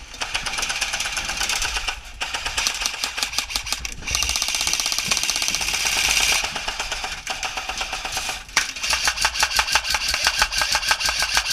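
Electric airsoft gun (AEG) firing full-auto: a fast, even rattle of the gearbox cycling and BBs leaving the barrel. It comes in several long bursts with short breaks between them.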